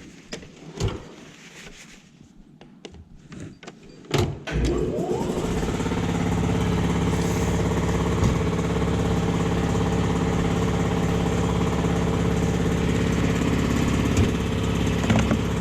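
A few scattered clicks and knocks, then about four seconds in an engine starts with a brief rising pitch and settles into steady running.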